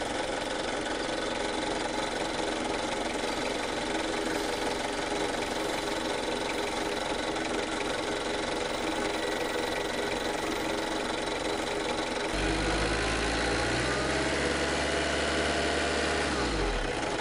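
A Mazda MPV's WL-T 2.5-litre four-cylinder turbodiesel idling steadily, its alternator not charging because the drive belts have gone slack. About twelve seconds in, a deeper low hum joins it for several seconds.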